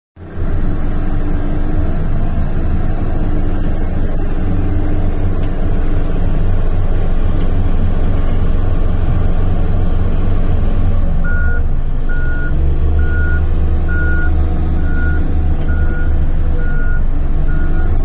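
Heavy diesel engine of a large wheel loader running under load with a deep, steady drone. About two-thirds of the way in, its reversing alarm starts, a regular high beep about one and a half times a second as the machine backs up.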